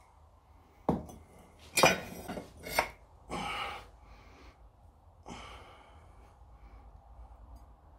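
Handling noise as casting gear is moved: three sharp knocks about a second apart, a short scraping rush, then a softer knock.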